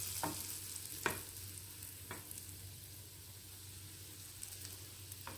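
Butter sizzling and foaming in a frying pan around gram-flour-batter-coated bread slices, dying down gradually. Three light knocks in the first two seconds and one more near the end.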